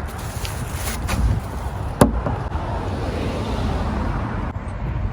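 A single sharp knock about two seconds in, like a vehicle door or hatch shutting, over a steady low outdoor rumble.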